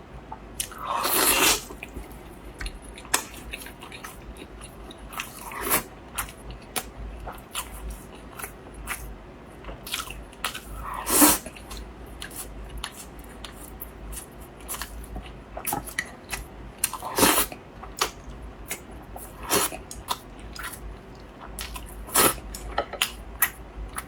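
Close-miked wet chewing and biting of pork knuckle, with many short smacks and clicks and a few louder bites about a second in, near the middle, around 17 seconds in and near the end.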